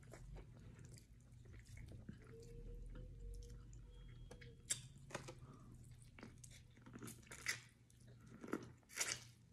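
Faint chewing of boiled corn on the cob, with a few short, sharp bites and mouth clicks in the second half.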